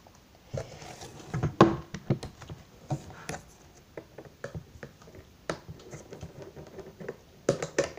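Irregular clicks and knocks of handling: hands moving and bumping a plastic toy robot close to the microphone, the loudest knock about one and a half seconds in.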